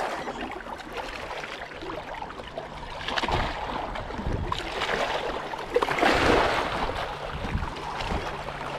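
Small waves lapping and splashing against rocks at the water's edge, with wind on the microphone.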